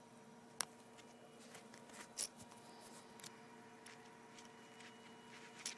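Quiet handling noises: a sharp click about half a second in, a louder double knock a little after two seconds, and another click near the end, over a faint steady hum.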